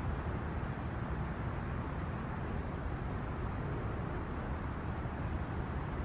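Steady outdoor background noise with a low rumble and a faint high hiss; no birdsong stands out.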